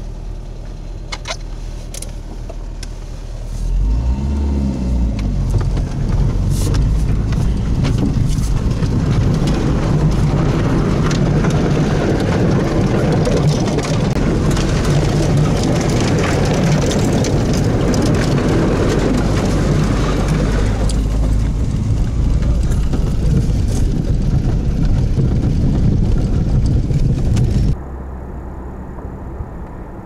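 Inside a Škoda Felicia, the engine idles, then revs and pulls away about four seconds in. It runs under load while tall dry grass and weeds rush and crackle along the car's body. Near the end the sound drops suddenly to a quieter, steady engine and road drone.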